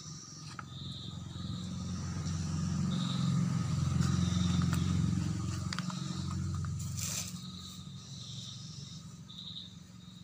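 Hands pressing soil and handling a small plastic grow bag, making scraping and rustling sounds. A low rumble swells over the first half and fades, with a sharp click about seven seconds in. Short high chirps repeat in the background.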